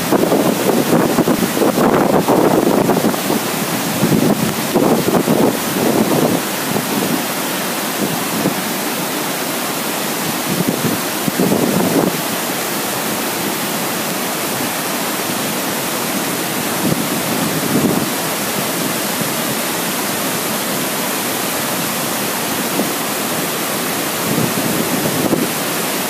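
Iguazu Falls' cascades and rapids producing a loud, steady rush of water. Gusts of wind buffet the microphone, mostly in the first few seconds and in brief puffs later.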